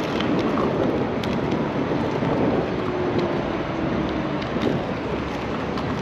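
Steady rushing rumble of wind buffeting the microphone and the Inmotion V11 electric unicycle's new Chao Yang H666 tyre rolling over rough asphalt while riding, with a few faint clicks.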